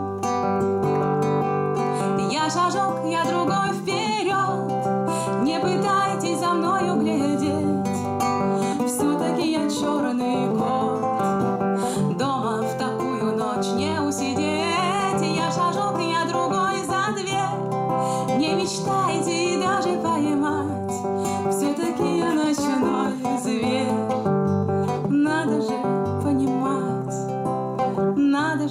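A woman singing a song while strumming her own acoustic guitar.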